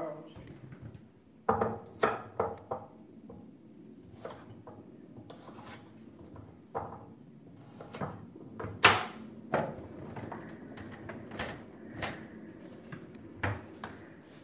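Kitchen knife chopping vegetables on a wooden cutting board: irregular sharp knocks, sometimes in quick runs and sometimes a second or more apart, with the loudest knock about nine seconds in.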